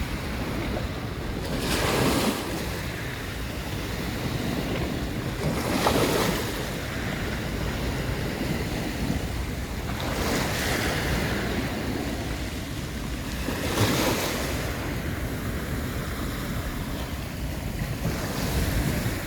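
Sea waves breaking on the shore about every four seconds, each surge rising and washing back, over a steady low rumble of wind on the microphone.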